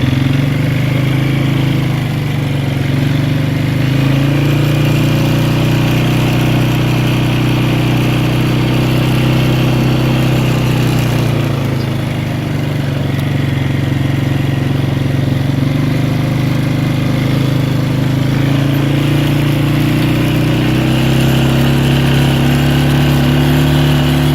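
Polaris four-wheeler (ATV) engine running steadily under throttle while riding, easing off briefly about halfway through and then picking back up.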